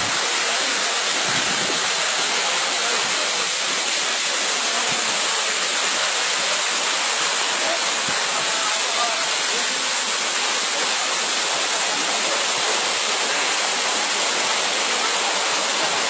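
Waterfall pouring down onto rocks into a pool: a steady, unbroken rush of falling water.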